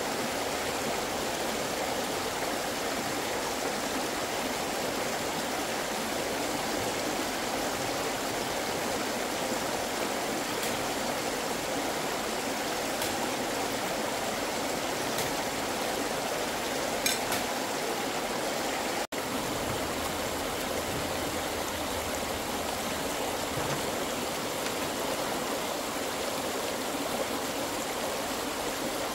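Continuous steady rushing noise, even throughout, that cuts out for an instant about two-thirds of the way in.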